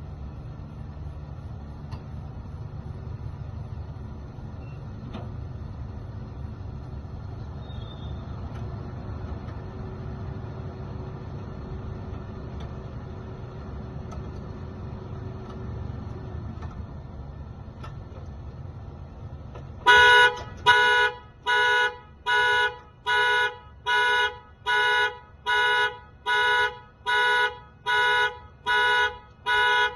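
A low steady rumble, then about twenty seconds in a car horn starts honking in an even, repeating rhythm, about seven honks every five seconds: the 2014 Toyota Camry's anti-theft alarm, set off by the door being opened without the key.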